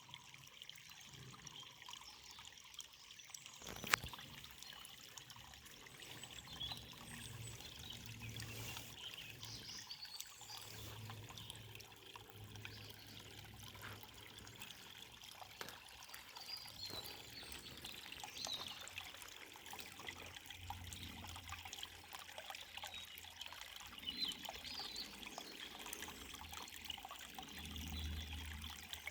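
Forest river water trickling and splashing steadily, with a faint bird chirping now and then. There is one sharp click about four seconds in.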